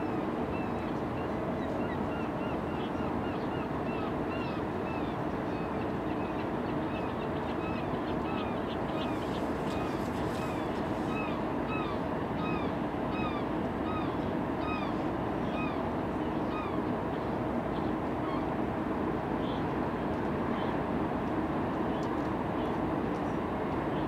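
A flock of birds giving short, repeated calls, about two a second, over a steady low rumble; the calls die away about three quarters of the way through.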